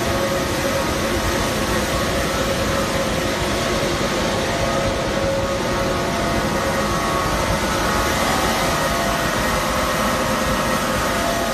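High-speed paper rewinder machine running, a steady, unbroken machine noise with a constant hum and a few held higher whines over it.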